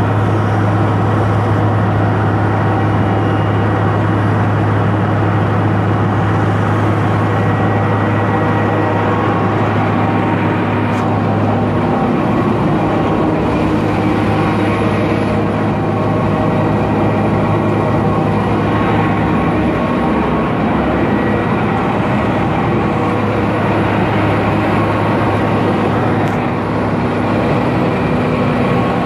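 Milling machine running as it cuts a metal rod: a loud, steady mechanical drone with a strong low hum that shifts about twelve seconds in.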